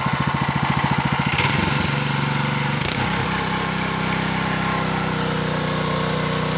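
A Yamakoyo 7 hp single-cylinder gasoline engine runs just after starting. It beats evenly at low speed at first, then about a second and a half in it picks up and runs smoothly and steadily at a higher speed.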